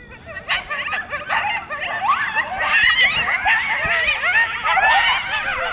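A pack of coyotes yipping and howling together: many high, wavering calls overlap in a chorus that grows louder about two seconds in.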